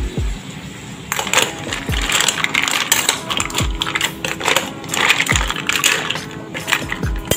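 Mussel shells clattering and clinking against each other and the stainless steel pot as they are stirred with a metal spoon, starting about a second in. A low falling thump repeats about every second and a half underneath.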